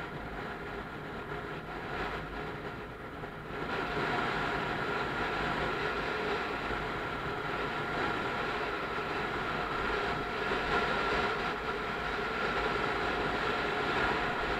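Motorcycle engine running steadily under way, with wind rushing over the microphone. It gets louder about three and a half seconds in.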